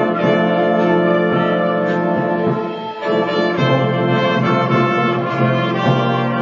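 School band playing live, brass to the fore in sustained chords; the sound thins briefly just before three seconds in, then the full band comes back.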